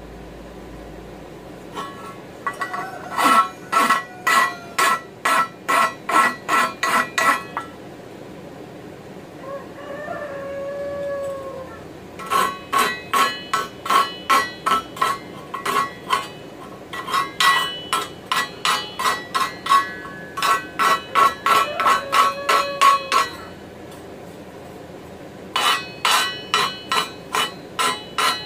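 Hand file stroking across a forged mild-steel frying-pan handle to smooth rough spots and burrs. The strokes come in quick runs of about two or three a second, and the steel pan rings on each one. The runs stop for a few seconds between them.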